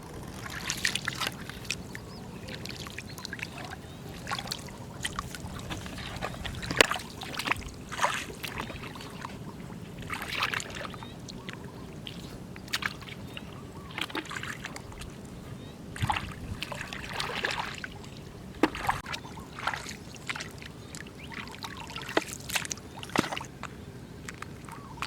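Shallow floodwater running steadily, with irregular splashes and sloshes from wading and picking through it.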